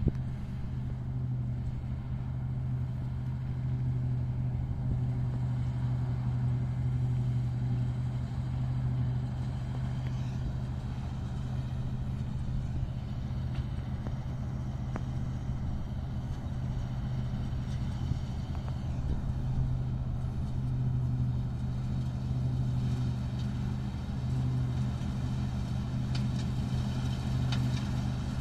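New Holland combine harvester running steadily as it cuts wheat: a constant low engine hum with no change in pitch.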